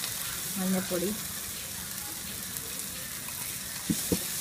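Onion, tomato and chilli masala sizzling in a frying pan, with two sharp taps near the end.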